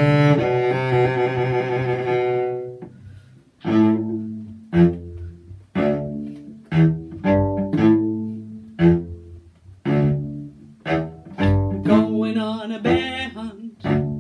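Instrumental music on a low string instrument. It holds one long note for the first few seconds, pauses, then plays a run of separate short notes, each fading after it starts.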